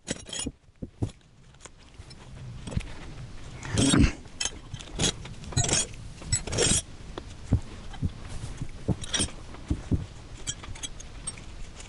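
Steel hand wrenches clinking and clattering as they are picked up and set down one after another in quick, irregular knocks. The sorting is fast-forwarded.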